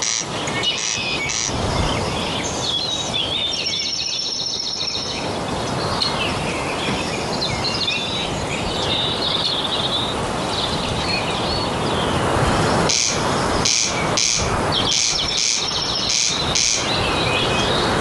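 Corncrake giving its rasping, repeated 'crex crex' call: once near the start, then a quick series of calls near the end. Other small birds chirp in the background over a steady hiss of ambient noise.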